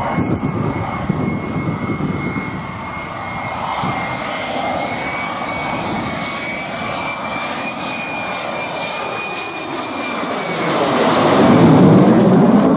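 F-35 Lightning II's single F135 turbofan jet engine running with a steady high whine over a rushing roar as the jet flies low with its landing gear down. The noise builds to its loudest as it passes close by near the end.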